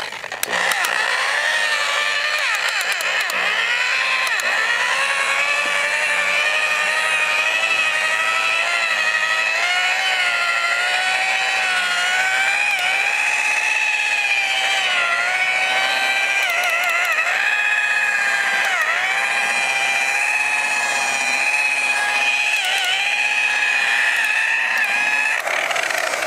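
Electric rotary buffer with a wool pad running against a car's painted door and quarter panel: a steady motor whine that sags in pitch several times as the pad is pressed into the paint. It is compounding old, oxidized single-stage paint on a first pass.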